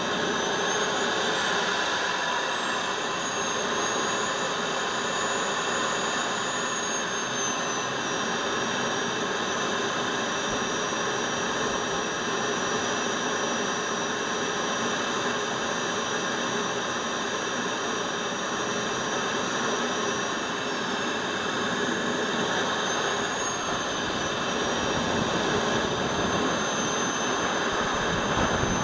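Miniature gas-turbine engines of radio-controlled model jets running steadily on the ground: an even jet rush with a high-pitched whine that slowly wavers up and down in pitch.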